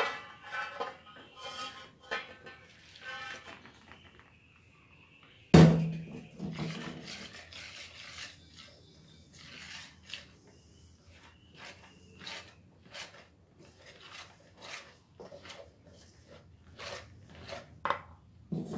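Hot water poured from a steel pot into a stainless steel bowl of rice flour and tapioca starch, then a single loud metallic clank about five seconds in. After that a wire whisk scrapes and taps against the stainless bowl in repeated strokes, roughly two a second, mixing the scalded flour into dough.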